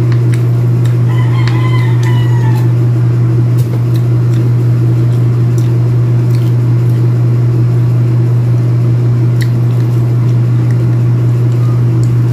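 A rooster crows once, about a second in, over a loud steady low hum. Scattered small clicks come from hands peeling pomelo segments.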